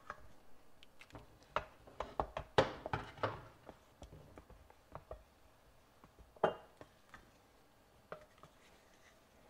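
Wooden spatula stirring thick taro cake batter in a stainless steel bowl, knocking and scraping irregularly against the bowl's side. The strokes come thickest in the first few seconds, with one sharper knock about six and a half seconds in.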